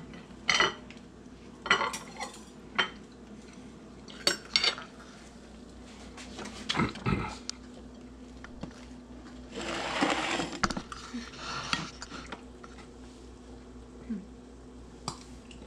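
Kitchen dishes and utensils being handled on a counter: scattered short clinks and knocks, with a longer rustling stretch about ten seconds in, over a faint steady hum.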